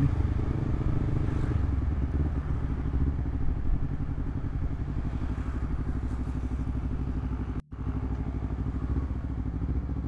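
Honda CBR250RR parallel-twin engine running steadily through a Villan MV2 aftermarket exhaust, cruising at light throttle in fourth gear. The sound cuts out for an instant about three-quarters of the way through.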